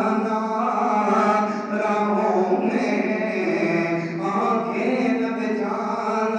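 A man's voice chanting in long, held melodic lines that glide between notes: a sermon or devotional verse delivered in a sung, recitative style into a microphone.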